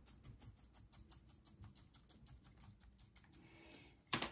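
Faint, fast clicking and rustling of gritty potting substrate being handled and pressed into a small pot, with one louder knock near the end.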